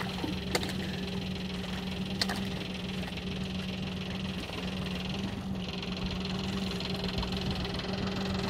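Boat's outboard motor idling with a steady, even hum. A couple of sharp knocks sound about half a second and two seconds in.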